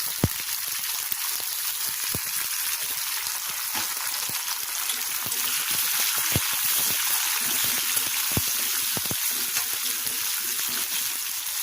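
Chopped tomato and onions sizzling steadily in hot oil in a frying pan, with a few sharp clicks, the loudest near the start and about six seconds in.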